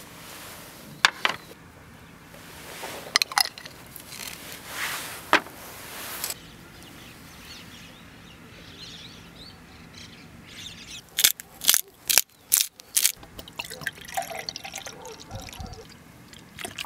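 Liquid pouring and dripping as Italian salad dressing is drizzled over sliced salmon and cucumber, with a few sharp clicks and knocks from handling. Near the end, beer starts pouring into a glass.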